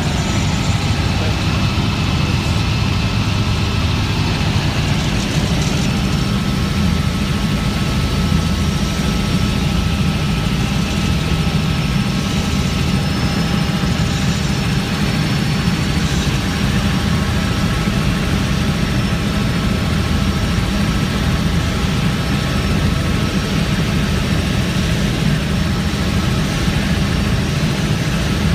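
Helicopter in flight, heard from inside the cabin: a loud, steady, low rotor and engine drone with faint steady whining tones above it.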